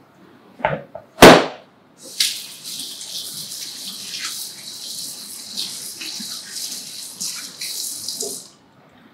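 A stainless steel mixing bowl is set down on the countertop with two knocks, the second loud. Then a kitchen sink faucet runs with hands being rinsed under it for about six seconds, and the water cuts off shortly before the end.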